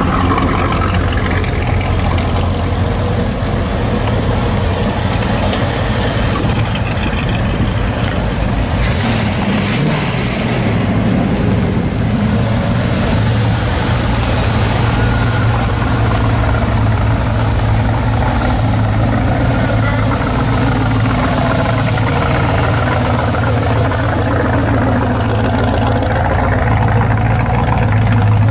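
Hot rods and classic muscle cars rolling slowly past one after another at low speed, their engines and exhausts running in a continuous low burble that grows a little louder near the end as a car with exposed exhaust pipes goes by.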